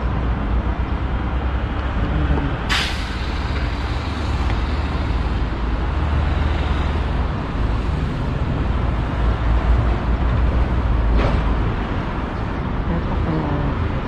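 Steady outdoor rumble of wind buffeting the microphone over traffic noise, with two short sharp hisses about three and eleven seconds in.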